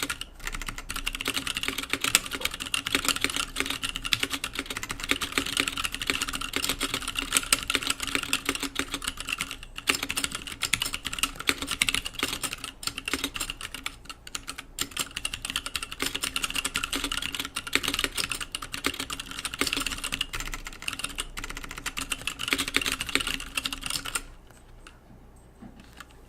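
Fast, continuous typing on a custom mechanical keyboard with 65g Zealios tactile switches, GMK doubleshot ABS keycaps and an aluminum plate in a Redscarf 78 aluminum-and-acrylic case: a dense stream of keystroke clicks. The typing stops about two seconds before the end.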